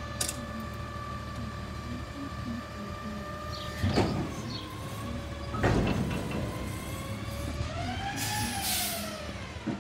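Garbage truck with a Curotto-Can arm running, its engine and hydraulics humming steadily while the arm cycles a cart. There are two loud bangs, about 4 s and just before 6 s in, as the cart is dumped and knocked against the can. Then the engine and hydraulic pump whine rise and fall again.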